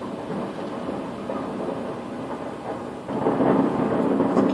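Distant fireworks going off, their booms and crackle merging into a continuous rolling rumble that grows louder about three seconds in.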